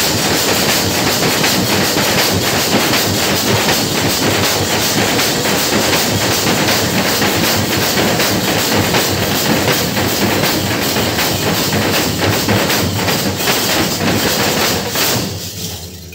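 A troupe of drummers beating large double-headed drums with sticks in a fast, steady, driving rhythm. The playing falls away near the end.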